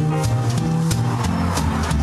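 Instrumental music with a moving bass line and a steady drum beat.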